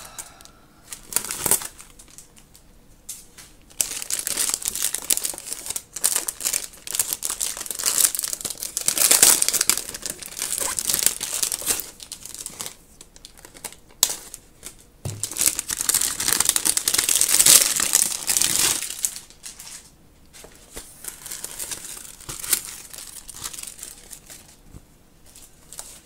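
Plastic packaging crinkling and rustling in long bursts as a pouch is unwrapped and cut free with scissors, with a few sharp clicks along the way.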